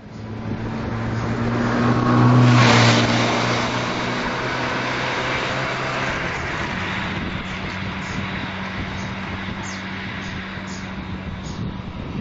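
Engine of a Chang'an mini truck (about 30 PS) running under throttle while the truck is driven. It is loudest about two and a half seconds in, then runs steadily.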